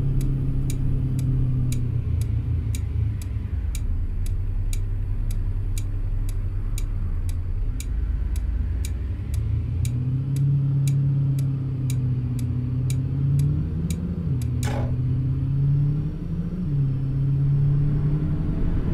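A car's turn-signal indicator clicking steadily, about two clicks a second, over the engine and road rumble inside the car. The engine hum drops a couple of seconds in and rises again past the middle, and there is one brief sharp sound near the end.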